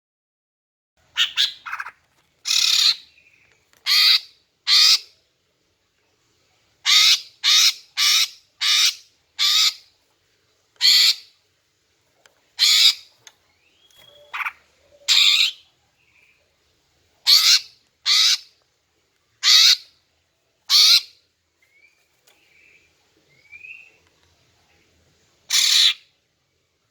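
Female greater green leafbird (cucak ijo) giving short, harsh, rasping calls, singly or in quick pairs at irregular gaps, with a few faint short whistled notes between them. This is the female call that bird keepers use to lure male cucak ijo and set them singing.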